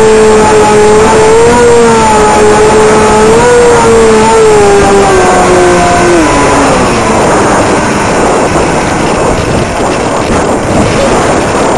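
Battery-electric motor and propeller of a Stratocam RC plane running with a steady whine that wavers slightly, then drops in pitch and fades out about five to seven seconds in. Heavy wind noise on the microphone throughout.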